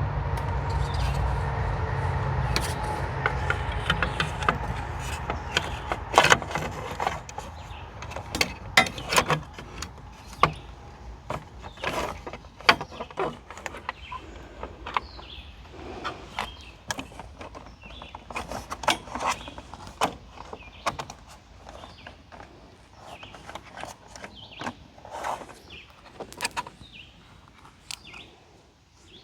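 Scattered clicks, taps and knocks of small parts and tools being handled as a plastic cover is fitted back on and screwed down, over a steady hum that fades out in the first few seconds.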